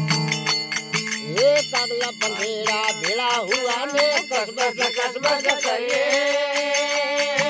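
Marwari devotional bhajan music: low held drone notes under fast, steady percussion, with a melody line that slides and wavers in pitch starting about a second in.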